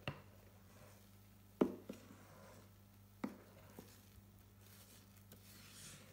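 A spatula scraping chocolate sponge-cake batter out of a mixing bowl into a metal cake tin, with a few soft knocks of the utensils against the tin, the loudest about a second and a half in, and a soft scraping near the end.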